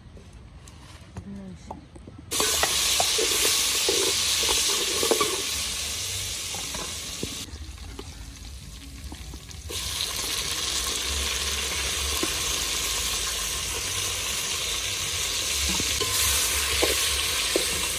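Food frying and sizzling in hot oil in a pan, with stirring knocks. The sizzle starts suddenly about two seconds in, dips for a couple of seconds midway, then carries on steadily.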